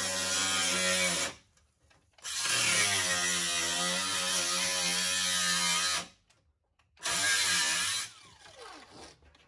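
Power tool cutting through the steel front cross member of a Dodge Ram 2500, running in three spells with short breaks between. A fainter falling whine follows near the end as it winds down.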